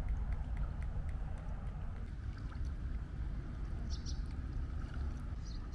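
Steady low rumble of outdoor ambience, with a few short, high bird chirps about four seconds in and again near the end.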